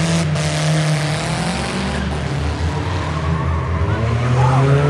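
Race cars' engines revving hard as they accelerate around the track, the pitch climbing at the start and again about four seconds in, over a broad noisy background.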